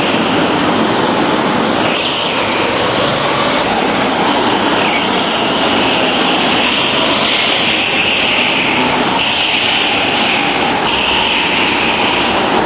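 Several racing karts' small engines running hard as they lap an indoor track, with tyres squealing on and off through the corners.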